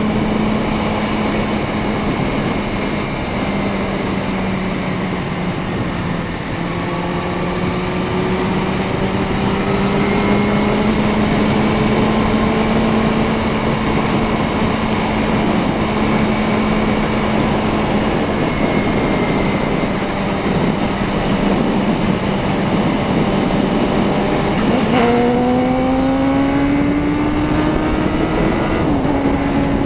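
Suzuki Bandit 650N inline-four motorcycle engine running at steady cruising revs over heavy wind and road noise, its pitch drifting slowly. About 25 seconds in the revs jump up sharply and climb, then step down a little near the end, as at a gear change.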